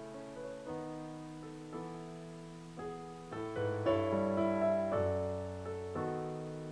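Electronic stage keyboard played in a piano voice, unaccompanied: slow sustained chords changing about once a second. Deeper bass notes come in midway, where it is loudest.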